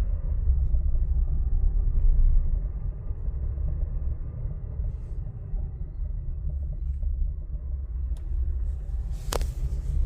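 Steady low road rumble of a 2026 Honda Passport TrailSport Elite on the move, with one sharp clunk about nine seconds in: the clunk from the front suspension.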